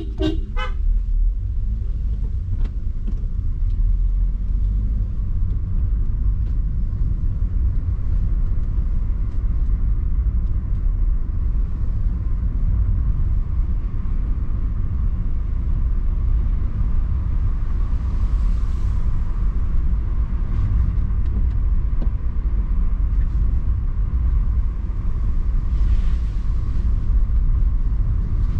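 Steady low rumble of engine and tyre noise inside a Suzuki car's cabin while it is driven along a hill road. A horn toots briefly right at the start.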